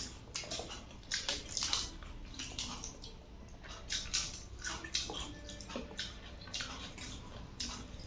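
Close-up eating sounds: wet chewing and lip smacks, with fingers squishing and mixing rice and chicken on a steel plate, in short irregular bursts.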